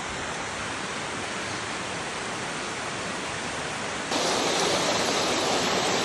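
Mountain stream rushing over rocks: a steady rush of water that gets louder about four seconds in.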